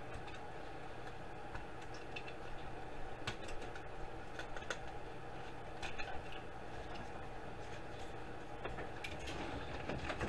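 Scattered light clicks and scrapes of a DVD drive's circuit board being worked loose from its sheet-metal chassis by hand and its ribbon cables unplugged, over a steady low hum.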